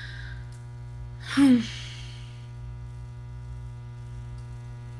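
Steady electrical mains hum with a buzzy edge, and one short vocal sound from the woman, falling in pitch, about one and a half seconds in.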